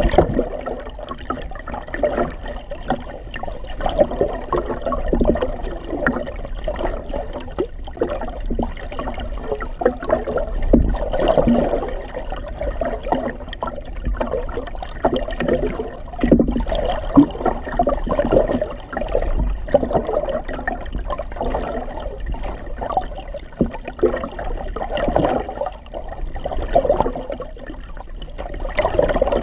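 Muffled water rushing and sloshing around an underwater camera housing, swelling and fading irregularly, with scattered small ticks.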